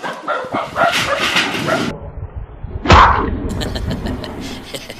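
A dog barking, then a loud thud about three seconds in as a big cardboard box is slammed down over the sleeping dog, followed by quick scrabbling and scuffing on sandy ground as the dog bolts.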